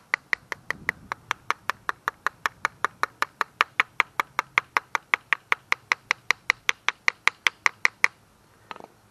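Sharp, evenly paced mechanical clicking at about five clicks a second. It stops abruptly about eight seconds in, followed by one brief short sound.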